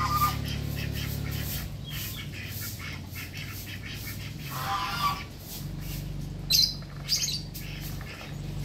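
Farmyard poultry calling: a squawk about five seconds in, then short high chirps twice near the end, over a low steady hum.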